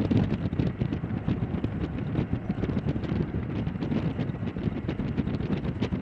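Strong wind buffeting the microphone in low, irregular thumps, over the running of a taxiing MV-22 Osprey tiltrotor's engines and proprotors.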